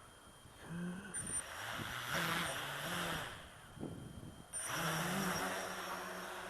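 Brushless motors and propellers of a custom-built V-tail multirotor spinning up in two bursts, one about a second in and another past the middle, the hum stepping up and down in pitch as the throttle changes.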